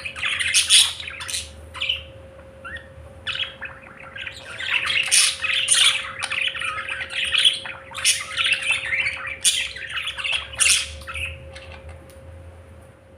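Budgerigars chattering and squawking in a rapid, overlapping stream of calls that thins out and stops near the end.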